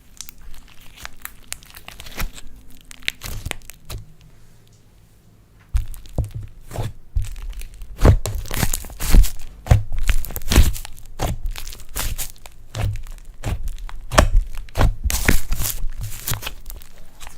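Slime being squished and kneaded by hand, with many sticky popping and crackling clicks and some soft low thuds. There is a short lull about four seconds in, then the squishing starts again, louder and denser.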